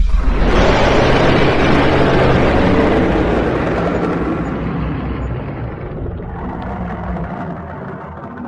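Dragon sound effect: a loud, rushing noise that begins suddenly and slowly fades over about eight seconds.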